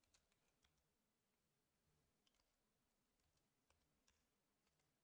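Very faint computer keyboard typing: scattered, irregular key clicks against near silence.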